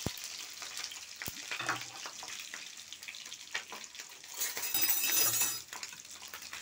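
Fish roe sacs frying in a little oil in an aluminium pan: a steady sizzle with scattered crackles and pops. The hiss swells louder for about a second midway through.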